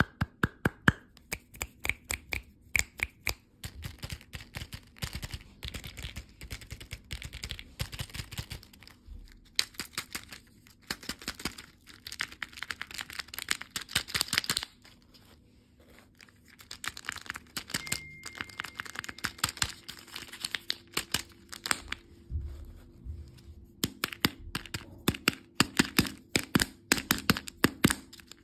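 Close-miked crackling, tearing and crinkling of candy and sweets being handled, opened or cut, in quick runs of sharp clicks with short pauses between them.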